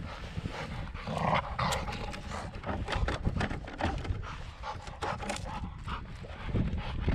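Belgian Malinois panting and trotting around on dry wood chips, its paws giving a run of short crunching steps.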